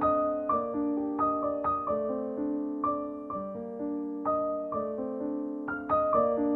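Background music: a gentle piano melody, notes struck about twice a second and left to ring.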